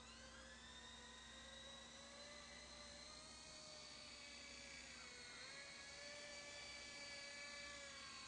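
Faint, high electric whine of a Hubsan H101D RC toy helicopter's small electric main motor and rotor. It rises in pitch as the rotor spins up at the start, then holds steady as the helicopter lifts off and hovers, with a brief dip in pitch about five seconds in.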